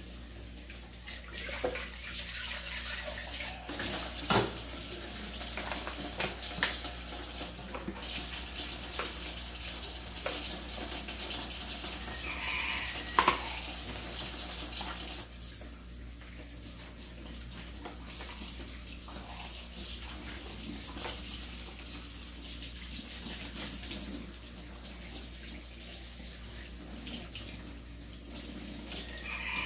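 Kitchen tap running into a stainless steel sink while dishes are washed by hand, with a few sharp clinks of pots and lids. The water gets quieter about halfway through.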